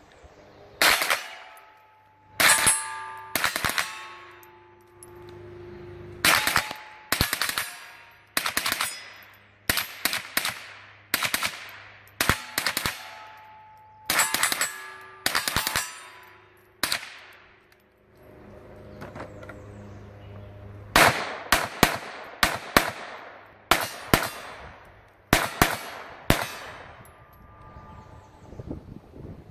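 Handgun shots in strings of quick singles, doubles and triples, each hit followed by the ringing clang of a steel plate target. There are about thirty shots, with a pause of a few seconds past the middle before firing resumes.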